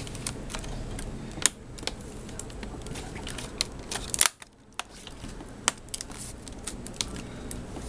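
Plastic clicks and taps as a trim panel on an HP Pavilion dv5 laptop is pressed and snapped back into place, with a few sharper snaps, loudest about a second and a half in and just after four seconds.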